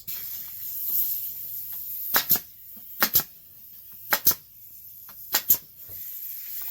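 Pneumatic nail gun firing four times, each shot a sharp double clack, about one a second from two seconds in, as brads are driven into glued wooden trim.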